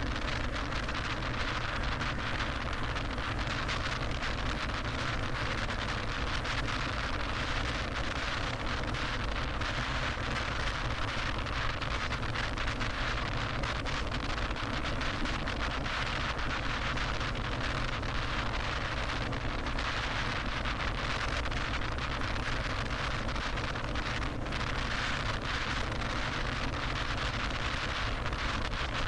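Steady tyre and wind noise of a car driving at freeway speed, unchanging throughout.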